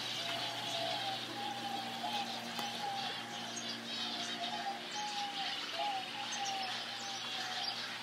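Many aviary birds calling together: dense high chirping and chattering over a string of short, repeated lower whistled notes. A steady low hum runs underneath.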